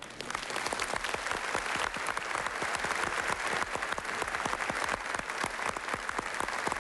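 Studio audience applauding steadily, a dense clapping that starts as the music stops.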